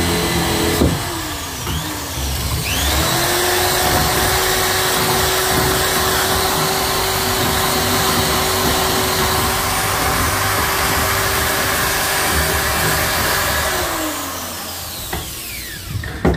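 Corded electric drill boring into a laminated wooden tabletop. It winds down about a second in, starts up again near three seconds, runs with a steady whine, then winds down near the end, followed by a knock.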